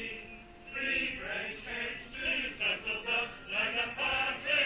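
A group of people singing a Christmas carol together from song sheets, the singing starting about a second in.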